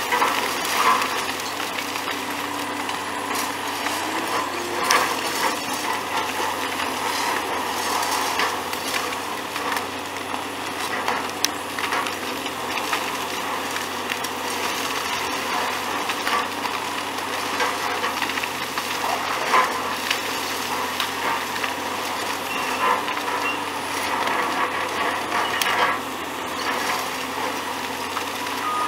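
Hydraulic excavator demolishing a concrete road bridge: a dense crackling noise of breaking material with frequent irregular knocks, over the machine's running engine.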